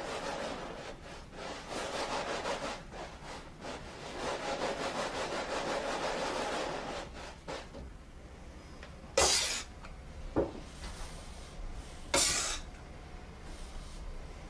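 Dry powdered Parian clay scraps being rubbed by hand through a wooden-framed sieve: a dense, scratchy rasping in quick strokes for the first seven seconds or so. Later come two short, sharp scrapes about three seconds apart.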